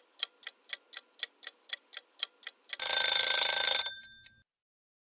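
Quiz countdown timer sound effect: a clock ticking about four times a second for nearly three seconds, then an alarm bell ringing for about a second and fading out, marking that the answer time is up.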